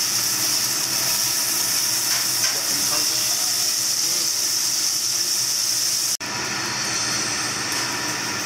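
Beef steaks sizzling on a hot teppanyaki steel griddle, a steady loud hiss; it breaks off for an instant about six seconds in, then goes on a little quieter.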